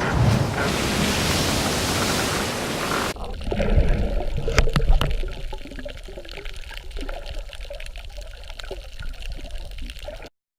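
Rushing water noise, then after a sudden cut a quieter low rumble with scattered knocks and clicks, which stops abruptly.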